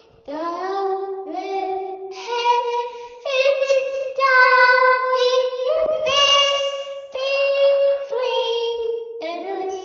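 A little girl singing a slow, creepy nursery-rhyme-like tune without words, holding each note about a second, with a short break about a third of a second in.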